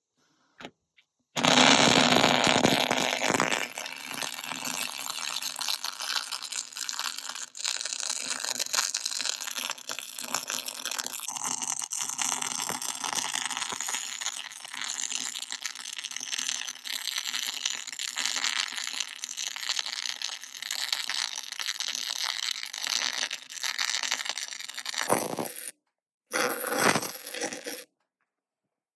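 MIG welder arc crackling and sizzling steadily through one long continuous bead of about 24 seconds, then a second short bead of about a second and a half after a brief stop. The welder is a Miller-Matic 252, welding steel on a semi truck.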